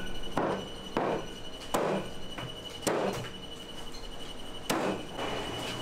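A heavy knife chopping into tuna on a cutting board: about five sharp strikes at uneven intervals.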